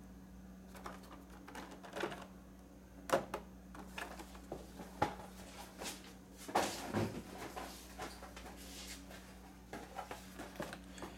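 Scattered light knocks and rustles of handling as carded action figures in plastic blister packs are put down and the next one is picked up, over a steady low hum.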